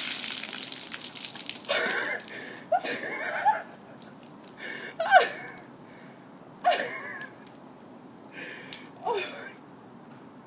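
Ice water from a bucket splashing down over a person, fading out in the first second or so, followed by a woman's string of sharp gasps and short squeals from the shock of the cold water.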